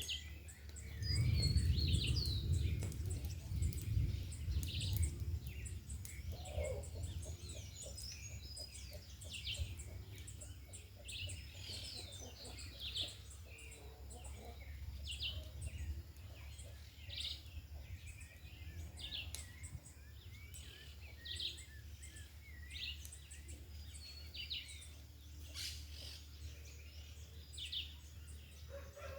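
Small birds chirping with many short calls throughout, over wind rumbling on the microphone, which gusts strongest in the first few seconds.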